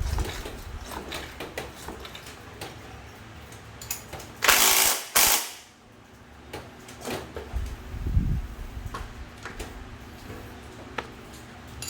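Hand tools being handled and put away, with scattered small metallic clicks and clinks. About four and a half seconds in there is a loud rushing noise lasting under a second.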